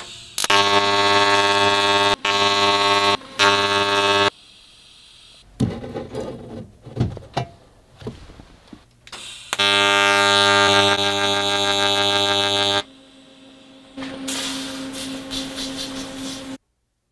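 TIG welding arc buzzing in three short bursts, then metal pieces clinking and knocking as they are handled, a longer burst of arc buzz, and a last, lower-pitched buzz that cuts off suddenly near the end.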